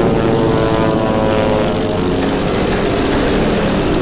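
Propeller engines of a formation of WWI-era biplanes droning steadily in flight.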